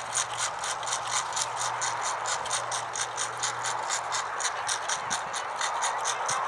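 A rapid, even mechanical clicking, about six or seven sharp clicks a second, like a ratchet, over a low steady hum.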